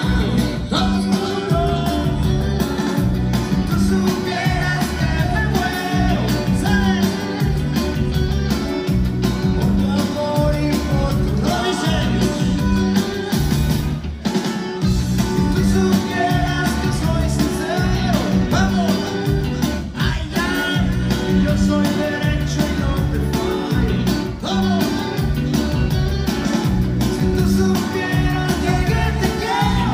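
Loud dance music with singing over a steady, heavy bass beat, played over a sonidero sound system.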